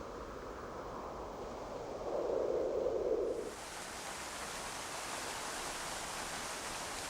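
Steady outdoor rushing noise that swells for about a second and a half, then changes abruptly about halfway through to a brighter, hissier rush, as from an edit between two nature ambiences.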